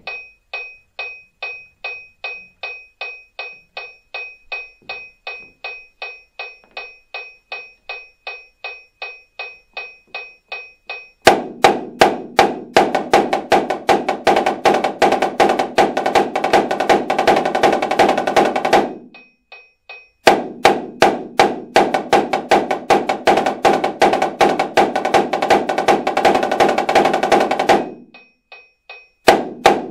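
A metronome clicking about three times a second, alone for the first eleven seconds. Then a Dynasty marching snare drum played in a fast, even paradiddle exercise in time with the click, stopping for about a second a little past halfway with only the metronome heard, resuming, and stopping again just before the end before another entry.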